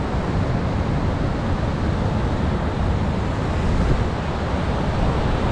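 Fast river water rushing over rocks in the rapids below a dam spillway, a steady, unbroken rush heaviest in the low end.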